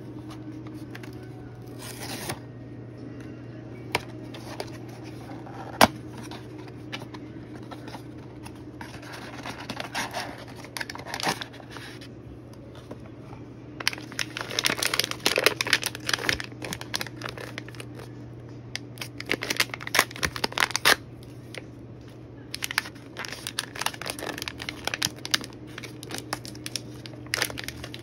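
A Pop Mart blind box being opened by hand: the cardboard box is opened, then its sealed inner bag is torn and crinkled, in bursts of tearing and rustling through the second half. There are a few sharp clicks in the first six seconds and a steady low hum underneath.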